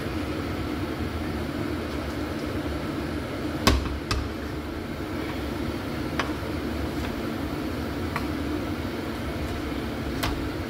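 Tagliatelle being tossed and stirred in a frying pan with a wooden spoon: a handful of sharp knocks of the spoon against the pan, the loudest about four seconds in, over a steady rushing background noise.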